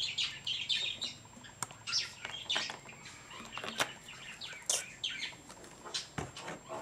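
Small birds chirping in quick, repeated short calls, with a few sharp clicks from plastic cups and a plastic bottle being handled.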